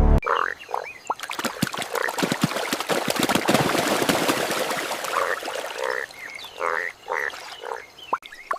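Indian bullfrogs croaking in short, repeated calls. A spell of crackling noise runs through the first half.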